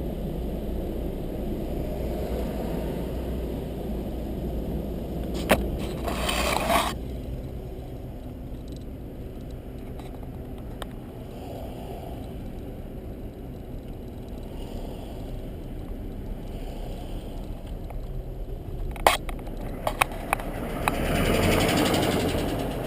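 Steady road and engine rumble heard from inside a moving car. There are a few sharp knocks, and two brief rushing swells: one about six seconds in, and a longer one near the end.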